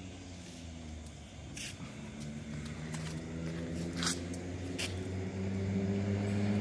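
Truck engine running, its hum slowly climbing in pitch and growing louder toward the end, with three short clicks along the way.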